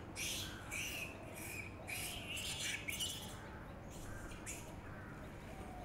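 Short, harsh squawking animal calls repeated in quick succession for about three seconds, then one more after a short pause.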